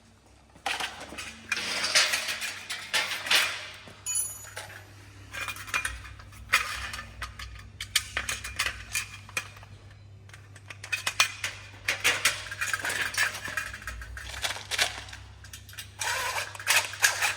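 Irregular metallic clattering and clinking as metal greenhouse frame parts and fittings are handled and fitted together, with a brief metallic ring about four seconds in.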